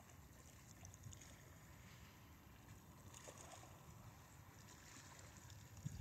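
Near silence: faint outdoor water ambience, a soft steady hiss with a low irregular rumble.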